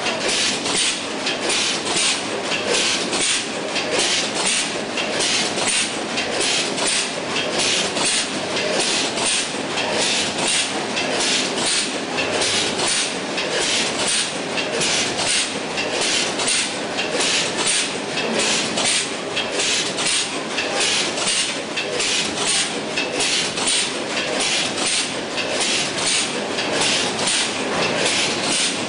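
Multihead weigher and vertical form-fill-seal packing machine running: an even, fast run of sharp mechanical clacks, a little over two a second.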